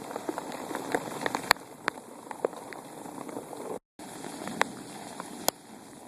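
Hail falling: a steady patter dotted with sharp clicks of single hailstones striking. The sound cuts out for a moment just before four seconds in.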